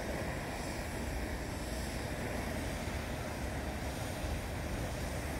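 Steady wind on the microphone: a constant rushing noise, strongest at the low end, with no distinct events.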